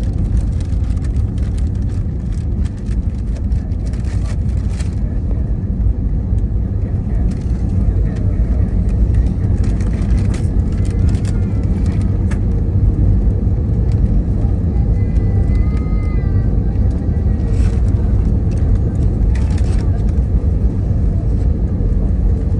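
Steady low rumble inside the cabin of an Airbus A320neo on the ground just after landing: engine and wheel noise as the jet rolls along, with a few faint clicks.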